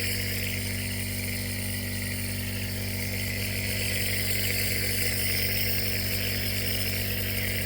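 Compressor nebulizer running: a steady motor hum with a hiss of air.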